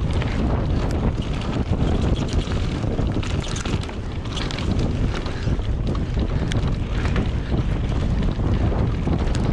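Wind rushing over the microphone of a downhill mountain bike at race speed, over the rumble of tyres on a dirt trail, with scattered sharp clicks and rattles from the bike over bumps.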